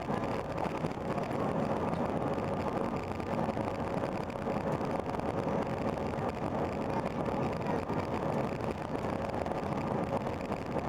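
Steady cabin noise of an Airbus A319-131 with its IAE V2500 jet engines running: an even rushing hum with a faint steady whine over it.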